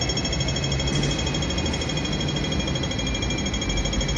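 Steady city-street background at night: a low rumble and an even hiss, with several constant high-pitched pulsing tones over them. No single event stands out.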